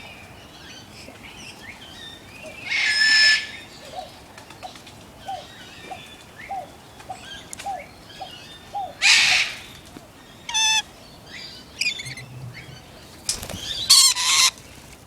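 Aviary birds calling: several loud, harsh screeches about 3, 9 and 14 seconds in, with a run of short repeated chirps, a few a second, in between.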